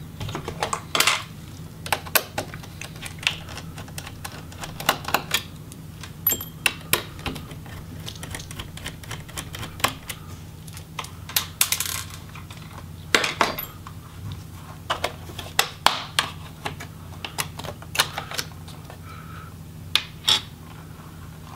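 Irregular small clicks, taps and scrapes of a pry tool working against a laptop's plastic bottom case as the rear rubber feet are pried off. A faint steady low hum runs underneath.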